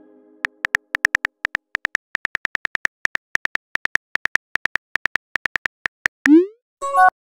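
Simulated phone keyboard clicks tapping out a text message at a quick, irregular pace. Near the end a short rising whoosh sounds as the message is sent, followed by a brief electronic tone.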